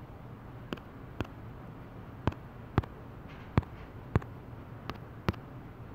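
About eight short, sharp clicks at irregular intervals: typing a password on a smartphone's touchscreen keyboard.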